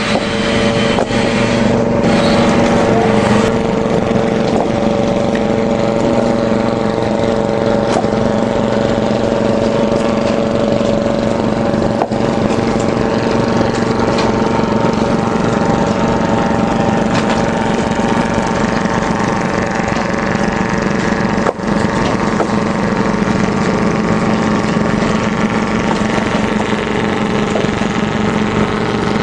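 An engine runs steadily at a constant speed, a loud, even hum with a few faint knocks or clunks along the way.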